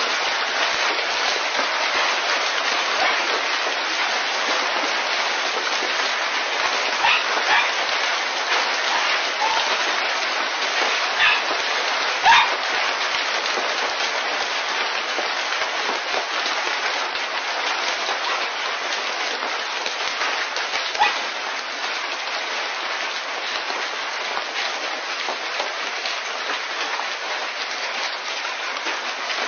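Hail falling steadily onto paving stones and a yard, an even, continuous noise of many small impacts. A few louder sharp sounds stand out, scattered through it.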